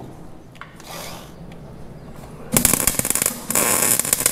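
MIG welder arc crackling and sizzling as a weld bead is run. It starts suddenly about two and a half seconds in, after a quieter stretch with a few faint clicks.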